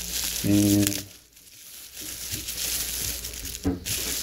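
Packaging being crinkled and handled by hand as the bath thermometer is unwrapped: a dense crackling that stops for under a second about a second in, then resumes.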